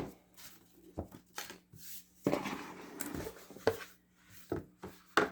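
A cardboard box and its contents being handled: several light knocks and taps, with a stretch of rustling partway through.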